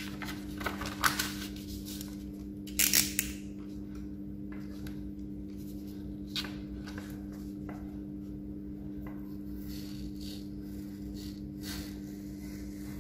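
A sheet of printer paper being handled and flattened on a wooden table: brief rustles, the loudest about three seconds in, then light taps and scrapes, over a steady low hum.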